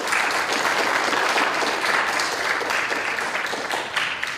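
A small audience applauding, steady clapping that thins to a few separate claps near the end.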